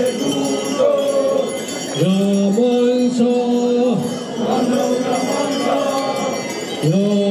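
A group of voices chanting a traditional dance song in unison, in repeated phrases of long held notes, each about two seconds long.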